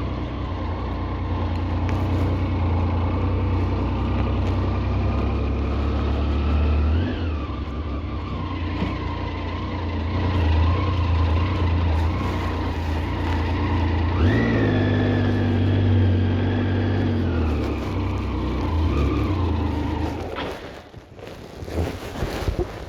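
A motor vehicle running with a steady low hum and a whine above it. The whine rises in pitch twice, holds a while after the second rise, then settles back. Near the end the hum drops away and a few knocks follow.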